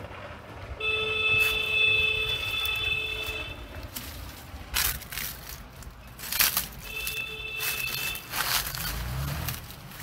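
Dry leaf litter and twigs crackling and brushing as someone pushes through dry scrub on foot, with a few sharp rustles in the second half. A steady high tone, several pitches sounding together, comes in twice: for about three seconds from a second in, and again briefly later.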